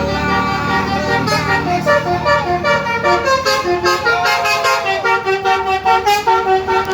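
Telolet basuri bus horn, a set of roof-mounted musical trumpet horns, playing a tune. It sounds a quick run of short stepping notes, with a longer held note near the middle, several horn tones sounding at once.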